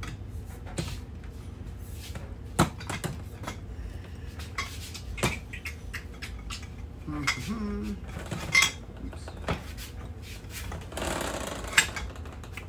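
Metal hand tools clinking and clanking against a steel workbench and a brake spindle assembly as a breaker bar is worked on a stubborn, very tight bolt, with a few sharper metal knocks.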